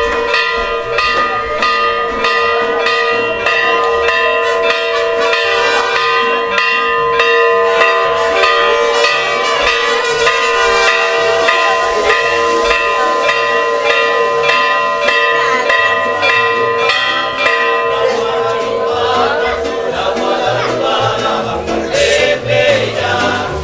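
A bell rung quickly and over and over, its tones ringing on between strikes. Near the end the ringing fades into voices, and there is one sharp crack.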